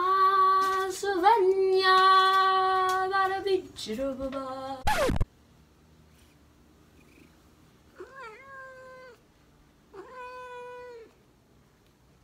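A woman's voice sings loud, long held notes for the first few seconds, then cuts off abruptly. After that a long-haired tabby cat meows twice, two drawn-out meows about two seconds apart.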